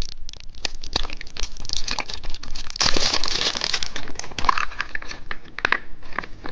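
Plastic wrapping of a surprise candy egg crinkling and tearing as it is opened by hand: a run of sharp crackles, densest about three seconds in.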